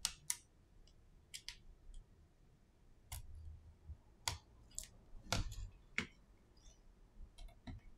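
Irregular sharp clicks and light taps of a precision screwdriver and small parts being handled on an opened iPhone SE (2020), about a dozen in all, with a soft handling rustle about three seconds in.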